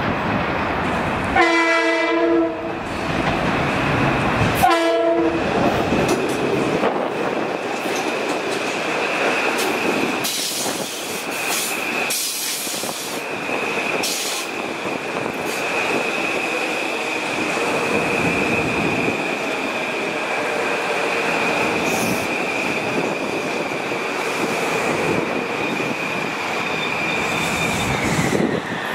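Kawasaki M8 electric multiple-unit train sounding its horn, one long blast and then a short one, as it approaches. It then rolls into the station with a steady high squeal and wheel clicks, and the squeal drops away near the end as the train comes to a stop.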